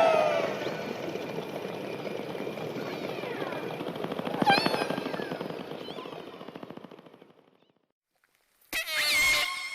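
Killer whales recorded underwater: a falling pulsed call at the start, then rapid trains of clicks with a loud click burst and a short call about four and a half seconds in, fading out. After about a second of silence, more gliding calls start near the end.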